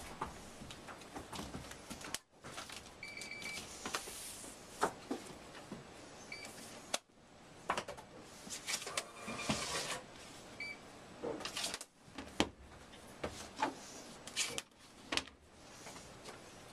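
Library books and paper slips handled on a counter: repeated knocks, clunks and paper rustling, with four short high electronic beeps spread through.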